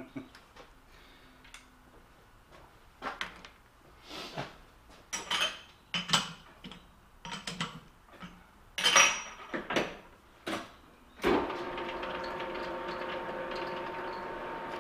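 Scattered metal clinks and clanks from steel tooling as a part is set in a lathe chuck and the chuck is tightened with a chuck key. About eleven seconds in, the lathe starts and runs steadily with a hum and a few steady tones.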